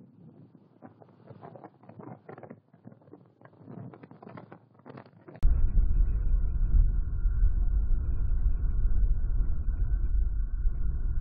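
Faint crackling of wind and rain on the eagle-nest camera's microphone, then about halfway through a sudden switch to a loud, steady low rumble of wind buffeting the microphone.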